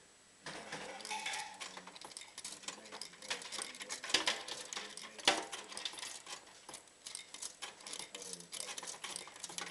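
Coins clattering at an old MPU3 fruit machine: a dense run of sharp metallic clicks and rattles that starts about half a second in.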